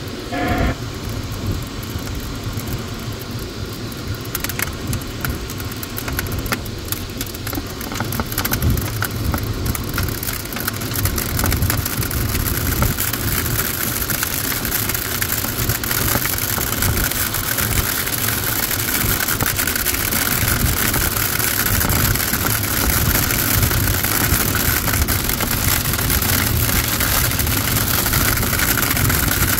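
Steady rush of airflow over a glider's canopy, heard from inside the cockpit, with scattered light ticks early on; the hiss grows louder from about ten seconds in.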